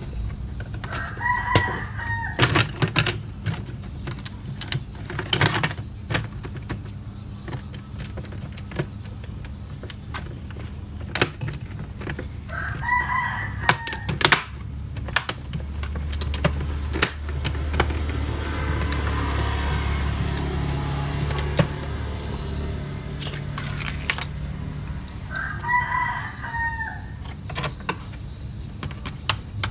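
A rooster crowing three times, about every twelve seconds, over sharp clicks and knocks from the laptop's plastic case and parts being handled. A low steady hum joins for several seconds in the middle.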